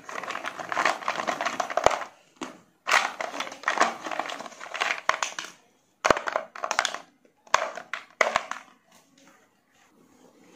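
Hollow plastic toy balls and small plastic toys jostled by hand in a plastic toy bathtub, clattering and rattling against each other in about four bursts of a second or two, with short pauses between.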